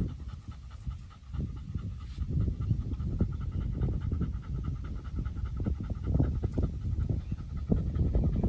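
German shepherd panting quickly and steadily with its mouth open.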